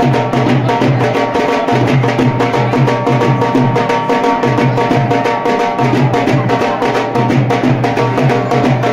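Music with a fast, steady drum beat and a bass line.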